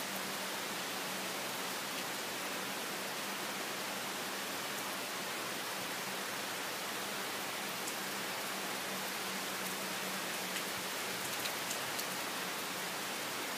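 Steady rain falling on palm fronds and grass: an even, unbroken hiss, with a few faint ticks of drops in the second half.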